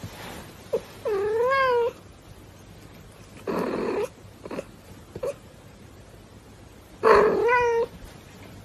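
Tabby-and-white house cat meowing while being scratched under the chin: two drawn-out meows with a wavering pitch, about a second in and again about seven seconds in, with a short breathy sound between them.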